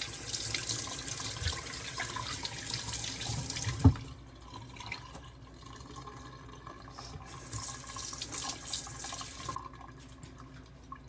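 Tap water running into a sink as freshly machined aluminium plates are washed, with a single sharp knock about four seconds in. After that the running water is quieter and comes and goes.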